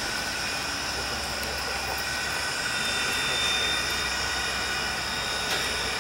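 Strasburg Rail Road No. 90, a 2-10-0 steam locomotive, approaching tender-first: a steady hiss and rumble with no distinct exhaust beats, joined by a low hum about a second in.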